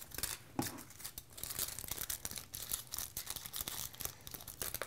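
Aluminium foil crinkling as it is folded, wrapped and pressed into shape by hand: a dense run of small, sharp crackles.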